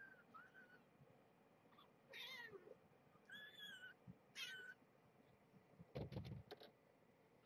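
Tiny kittens, about eleven days old, mewing: four thin, high-pitched mews, the loudest about two seconds in, one falling in pitch. About six seconds in comes a soft thump and rustle as the mother cat steps into the bedding.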